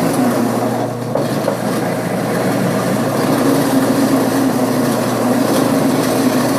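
Whiz Bang apple grinder running, a steady motor hum over the noise of grinding. The hum sags in pitch for a second or two near the start, then settles again.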